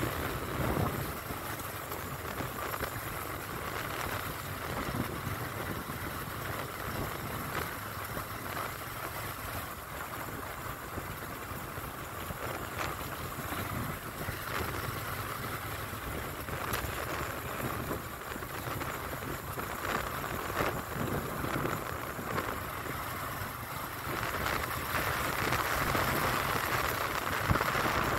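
Steady rush of wind and road noise from riding along a paved road, with wind on the microphone, growing a little louder near the end.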